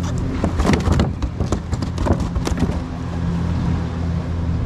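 Clicks and knocks of a plastic bait box being opened and handled on a kayak deck, mostly in the first half, over a steady low engine drone.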